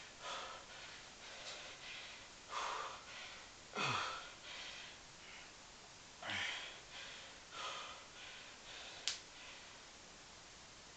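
A man breathing hard with the effort of repeated one-leg squats: a run of forceful breaths every one to two seconds, two of them voiced as short grunts that drop in pitch. A short sharp click comes near the end.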